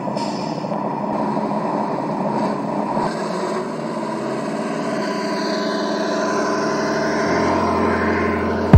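Truck engine sound from an RC scale Ural 4320's onboard sound module, played through small speakers as the model drives steadily. A low hum joins near the end.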